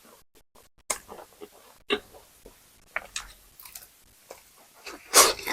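Crispy KFC fried chicken being bitten and chewed close to the microphone, a string of sharp crunches from the crust, the loudest near the end.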